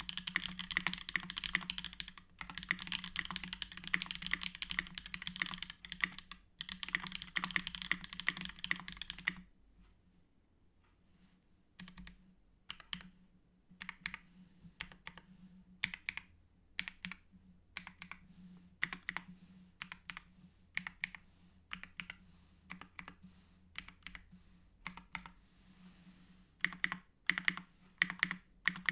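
Mechanical keyboard typing: an LZ-SQ case with Holy Gsus tactile switches lubed with 3204, an aluminium plate and GMK doubleshot ABS keycaps. Fast, continuous typing for about nine seconds with two brief breaks, then slower, scattered keystrokes and short bursts.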